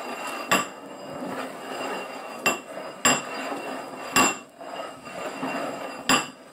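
Two upside-down ceramic bowls being slid and shuffled around on a wooden tabletop. Their rims scrape against the wood, with five sharp knocks as they are set down or bump each other.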